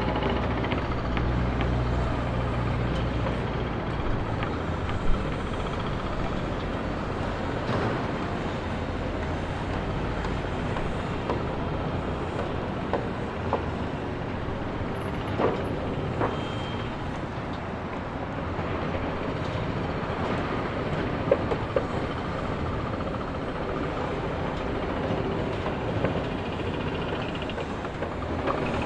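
Construction site ambience: a steady din of work with scattered sharp knocks and clanks, the loudest about five seconds in. A low machinery rumble underneath fades out about a third of the way through.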